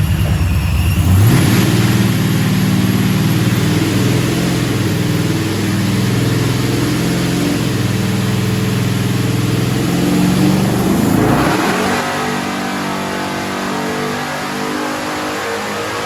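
Supercharged Ford 7.3-litre Godzilla V8 run hard on a chassis dyno: the revs jump up sharply about a second in, hold high, then drop back to a lower running note about eleven seconds in.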